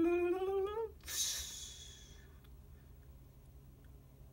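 A voice holding one long hummed note that slowly rises in pitch and breaks off about a second in, then a breathy hissing exhale lasting about a second: a vocal sound effect made with the mouth.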